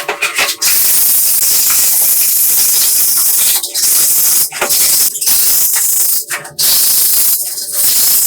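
Loud hissing spray in several long bursts broken by short pauses.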